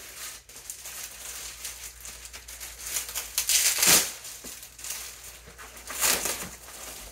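Plastic wrapping crinkling and rustling as it is handled and pulled off a cosplay shield, in irregular swells that are loudest about four seconds in and again about six seconds in.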